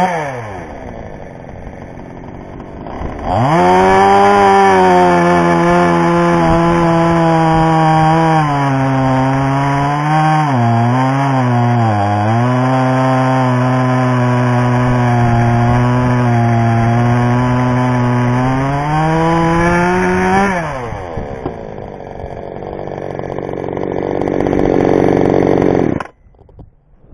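Oxipower 58cc two-stroke chainsaw idling, then revved to full throttle and held there for about seventeen seconds, its pitch dipping a few times in the middle. It then drops back to idle, and the sound cuts off abruptly near the end.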